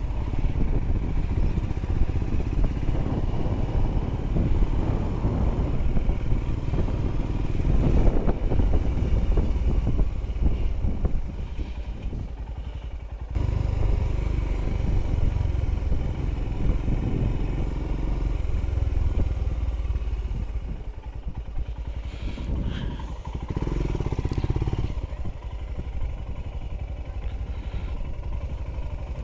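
Royal Enfield Himalayan motorcycle running, its engine mixed with heavy wind buffeting on the microphone. The sound changes abruptly about thirteen seconds in.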